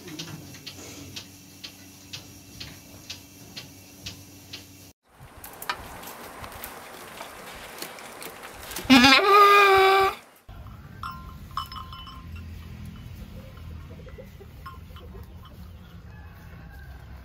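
A goat bleats once a little past halfway: one loud, quavering bleat of about a second that rises at its start. Before it there is faint regular clicking about twice a second; after it, a low steady rumble.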